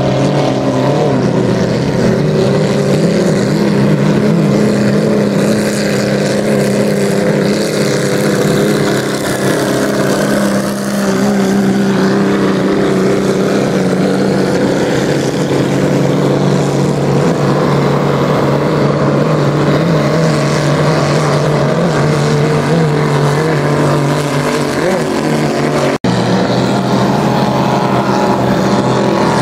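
Vintage hydroplane race boats' big-block engines with open exhaust running hard, a loud, steady drone. The sound cuts out for an instant near the end.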